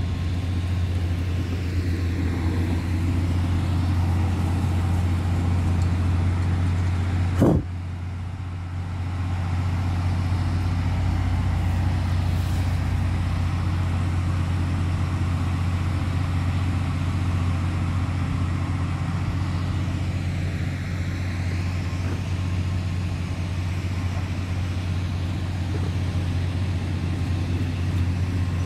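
Diesel engine of an XCMG motor grader idling steadily with a deep even hum. A single sharp click sounds about seven and a half seconds in.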